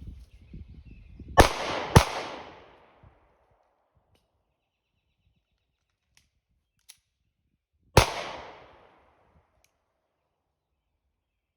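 Three shots from a Sig Sauer P365X 9mm pistol: two quick shots about half a second apart, then a third about six seconds later, each trailing off in a long echo.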